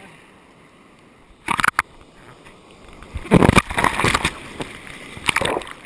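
Surf whitewater splashing and washing over a waterproof action camera mounted on a bodyboard, in bursts about a second and a half in, through the middle, and again near the end, as the camera goes through the foam.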